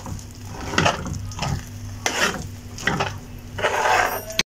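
Metal spatula stirring and scraping a thick grated-potato and semolina mixture around a frying pan on the heat, about five strokes, with a light sizzle as the last water cooks off. The sound cuts off abruptly near the end.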